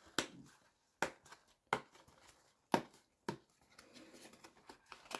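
Cardboard booster box handled with gloved hands: about five sharp taps and knocks of card spaced roughly a second apart, then a soft rustle of cardboard sliding against cardboard near the end.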